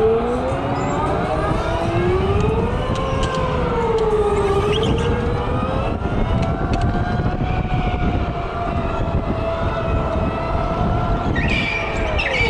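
Electric go-kart motor whining, its pitch rising and falling as the kart speeds up and slows through the corners, over a steady low rumble. Near the end a second, higher whine comes in and the main whine drops in pitch.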